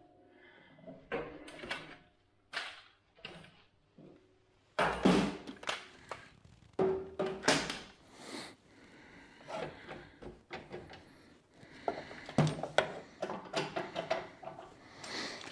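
Irregular clanks, knocks and rattles of hand tools and metal parts being handled during mechanical work, with the sharpest knocks about five seconds in and again near twelve and a half seconds.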